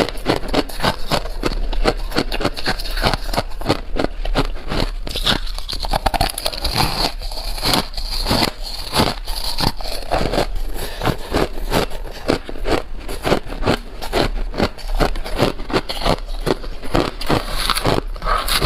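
Ice being chewed and crunched between the teeth: a steady run of sharp crunches, two or three a second.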